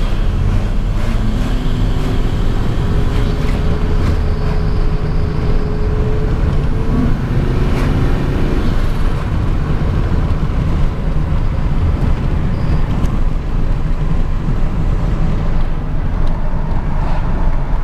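Turbocharged, cammed Chevrolet Silverado 1500 engine pulling the truck at part throttle on low boost, a steady low rumble with road noise; the engine note rises slowly over the first several seconds.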